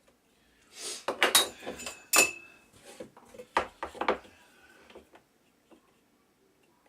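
A run of knocks, clatters and scrapes from hard workshop parts being handled, starting about a second in and lasting about four seconds, with a brief metallic ring after one of the knocks. A few faint ticks follow.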